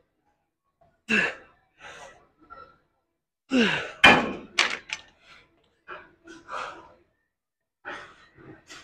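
Reps on a gym weight machine: a forceful exhale or grunt comes with each rep, about every two seconds. A sharp thunk of the machine lands about four seconds in.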